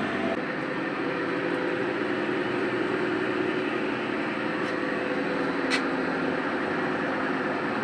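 LG top-load washing machine running with a steady mechanical hum and rumble, with two short clicks a little after halfway. The excessive noise comes from the washer's clutch, which turns out to be rusted by water leaking past its seal.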